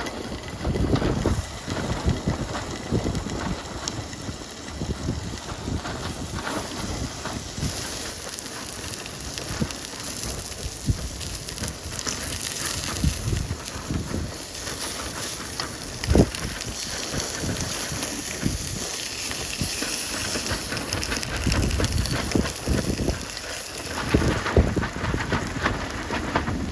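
Strong, gusty wind buffeting the microphone in uneven low rumbles over a steady high hiss.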